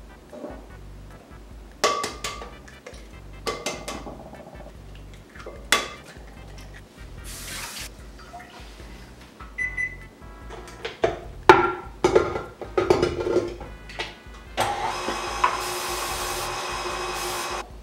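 Kitchen clatter of glassware and utensils over background music, with a tap running briefly about seven seconds in. Near the end, about three seconds of steady hiss from an aerosol can of cooking spray coating a cake pan.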